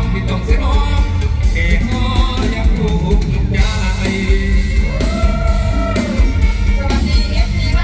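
Live mor lam band music played loud through a PA: a heavy, steady bass beat with a singer's voice over it, holding one long note about five seconds in.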